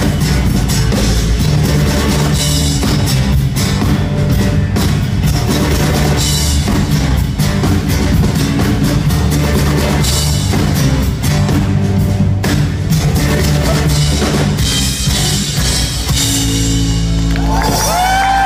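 Live rock band playing an acoustic set: acoustic guitars, bass guitar and a drum kit with steady drum hits. Near the end the band settles into a held chord while a high voice holds a bending note.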